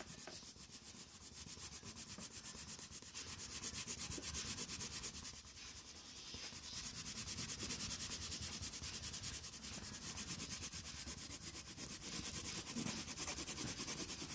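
A drawing tool scratching on paper in rapid, even back-and-forth strokes, as in shading or colouring in.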